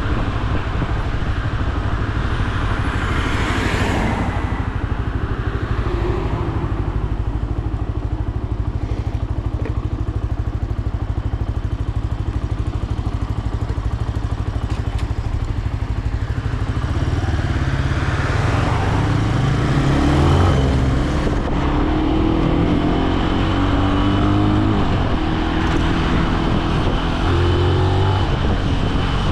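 Benelli BN125 single-cylinder engine running under way, with wind rushing past. In the second half the revs rise and fall repeatedly as the rider works through the gears.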